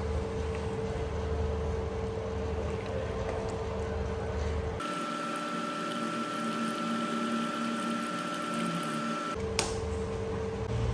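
Induction cooktop humming steadily with a faint whine while broth simmers in the pan. The pitch of the hum shifts abruptly about five seconds in and shifts back near the end, just after a single sharp click.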